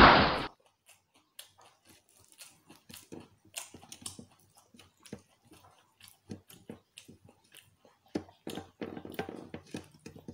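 Soft, irregular clicks and wet smacks of a person eating rice and fried chicken with his fingers: food squished and picked up off a glass plate, and chewing, busier near the end. A loud intro music sting cuts off about half a second in.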